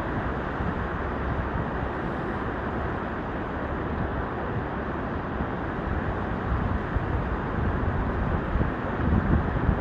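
Steady outdoor rumble and hiss of wind on the microphone, swelling slightly near the end.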